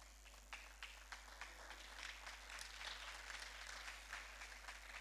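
A congregation clapping faintly and unevenly, the claps thickest in the middle seconds and thinning out toward the end.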